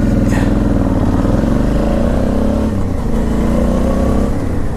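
Motorcycle engine running under throttle while riding, a steady note that wavers slightly in pitch.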